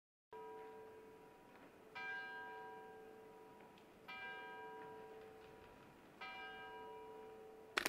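A clock-tower bell tolling four times, about two seconds apart, each stroke ringing out and slowly fading. A burst of rapid, loud clicking cuts in right at the end.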